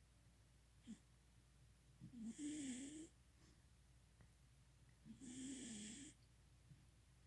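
A cat snoring faintly: two snores about three seconds apart, each lasting about a second, a low wavering tone with a hiss above it.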